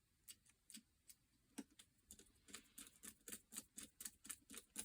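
Faint small clicks from a screwdriver turning small screws into the plastic housing of a GHD hair straightener, sparse at first and then quicker, about four a second, in the second half.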